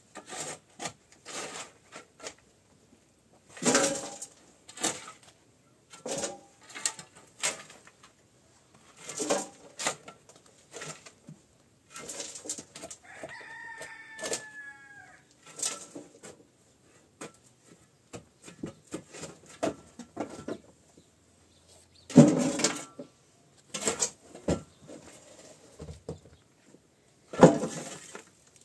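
Steel shovel scraping up broken concrete and dirt from a floor and tipping it into a metal wheelbarrow: an uneven string of scrapes and clattering knocks, with the two loudest crashes in the last third. A rooster crows once about halfway through.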